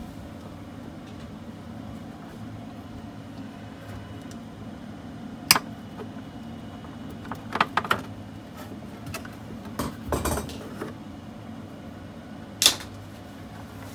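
Wire cutters snipping red-and-black two-conductor wire, with handling of the wire: a handful of sharp clicks and snaps, the loudest about five and a half seconds in and again near the end. A steady low hum runs underneath.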